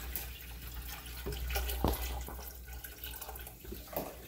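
Water pouring from a plastic pitcher into a tall stainless-steel stock pot, the stream slowly thinning, with a few light knocks about two and four seconds in.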